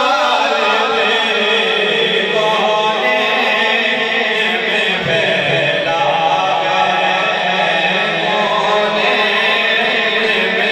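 Male voices chanting an Islamic devotional recitation, sung in long held notes.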